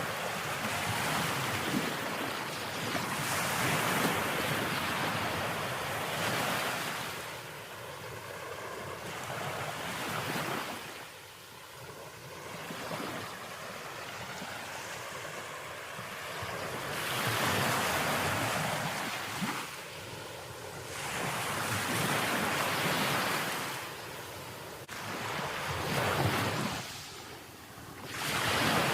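Sea waves breaking and washing up the shore, swelling and ebbing in surges every few seconds, with some wind on the microphone.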